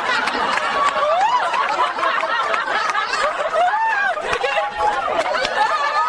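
Several people laughing together, with snickers and chuckles overlapping.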